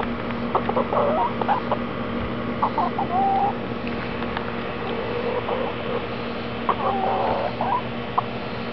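Hens clucking in a few short bursts, about a second in, around three seconds in and again near seven seconds, over a steady low hum.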